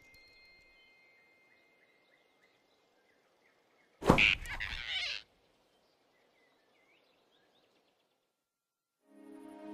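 Cartoon sound effect of the big rabbit snatching a squirrel: a sudden loud rush of noise about four seconds in, strongest at its start and lasting about a second. Before it, faint bird chirps; soft music fades in near the end.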